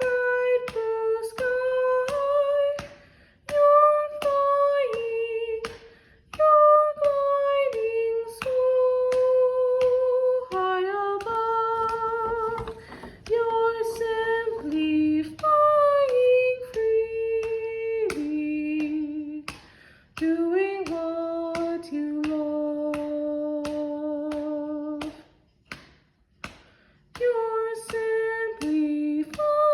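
A woman singing a soprano part slowly, phrase by phrase, with vibrato on the long held notes. Steady clicks keep the beat under the voice.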